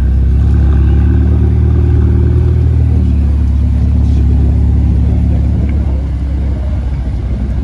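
Ferrari 488 Pista Spider's twin-turbo V8 running at low revs as the car creeps forward, a steady deep engine note that eases off slightly near the end.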